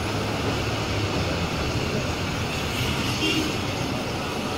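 Steady running noise of a Nilgiri Mountain Railway metre-gauge passenger train moving slowly, heard from inside a coach at an open window, with a low hum during the first second or so.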